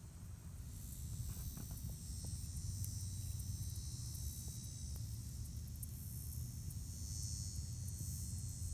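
Insects buzzing in a steady high-pitched chorus, with a low rumble underneath.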